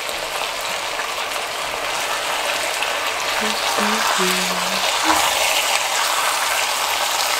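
Oxtail pieces sizzling steadily as they brown in hot oil in a Dutch oven with sofrito.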